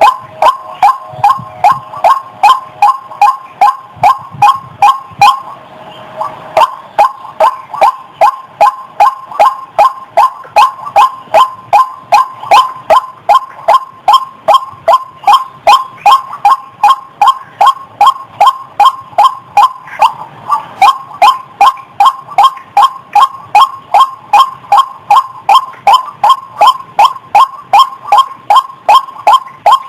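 White-breasted waterhen (ruak-ruak) calling in a loud lure recording: short 'wak' notes repeated evenly at about two to three a second, with a brief break about six seconds in.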